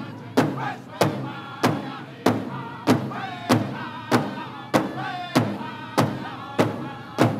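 Powwow drum group playing a men's prairie chicken dance song: a big drum struck in a steady beat, about one and a half strikes a second, with the singers' high, wavering voices over it.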